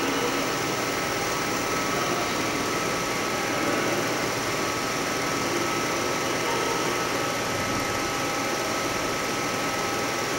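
Film projector running: a steady mechanical whir with a few constant tones.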